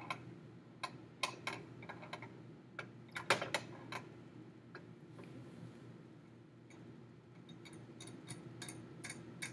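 Riders of an Ohaus triple beam balance being slid along the beams and clicking into their notches while a mass is set: a scatter of sharp clicks in the first few seconds, then a run of lighter ticks near the end.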